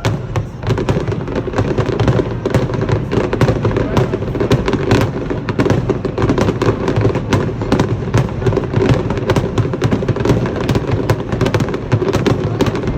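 Aerial fireworks in a rapid barrage: a dense, continuous string of bursts and crackles, several a second, starting abruptly.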